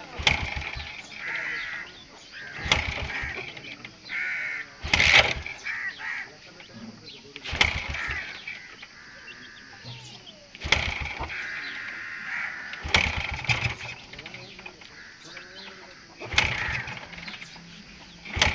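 Harsh cawing bird calls recurring every couple of seconds, with about half a dozen sharp knocks among them.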